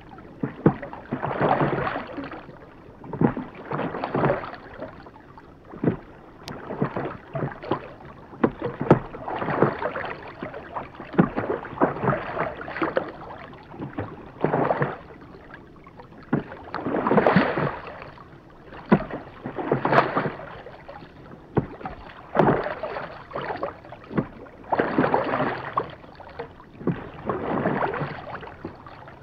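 Rowboat being rowed steadily: oars dipping and pulling through the water in a regular stroke, about one every two and a half seconds.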